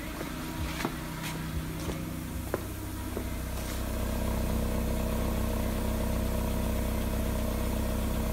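Suzuki Baleno's 1.6-litre G16B four-cylinder petrol engine idling steadily, heard at the exhaust tailpipes. The exhaust note grows louder about four seconds in.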